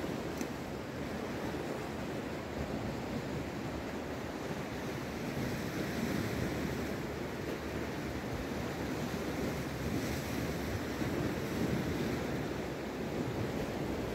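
Steady wash of the sea against the pier and shore, mixed with wind blowing on the microphone, swelling gently now and then.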